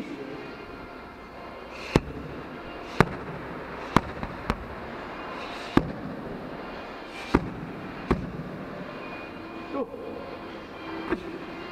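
Strikes smacking into handheld Muay Thai pads: a run of sharp slaps roughly one a second, with two fainter hits near the end.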